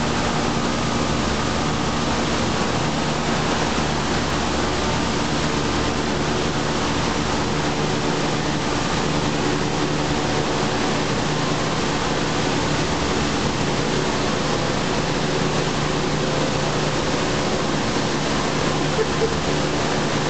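Steady rushing noise with an even low hum, like a running fan or other motor, unchanging throughout; no separate chewing sounds stand out above it.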